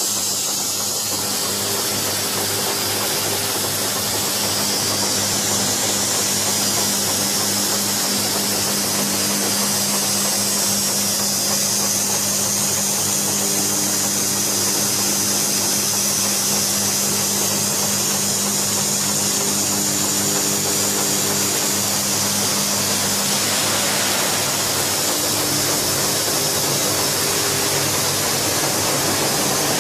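Bolt thread-rolling machine running: a steady mechanical hum under a loud hiss, with a fainter higher tone that comes and goes every few seconds.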